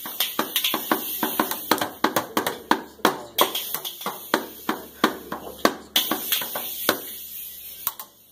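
Child-size drum kit struck irregularly with sticks: quick, uneven hits on the drums and cymbal, the cymbal ringing between them. The hits come thick and fast at first, then thin out near the end.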